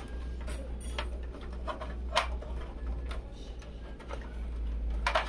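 Scattered light clicks and taps at irregular intervals over a steady low hum.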